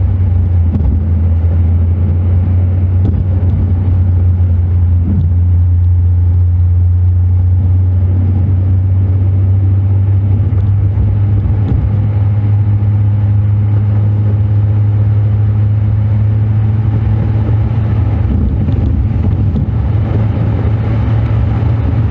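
Car on the move with a steady low engine and road drone.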